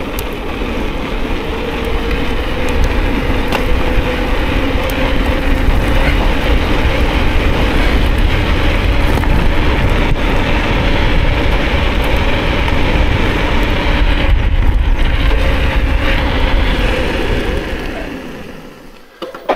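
Mountain bike running fast downhill: wind buffeting the microphone and the tyres humming on the ground. The noise builds as the bike speeds up, holds steady, then fades away over the last couple of seconds as the front disc brake brings the bike to a hard stop, with a sharp knock right at the end.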